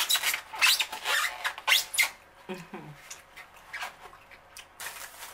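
Close-up chewing of a mouthful of orange chicken and chow mein: wet smacking and clicking mouth sounds, most of them in the first two seconds. A short hummed murmur about two and a half seconds in, and a few more smacks near the end.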